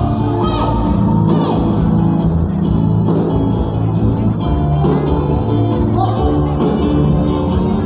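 Band music with a singing voice over a steady beat of about two strokes a second.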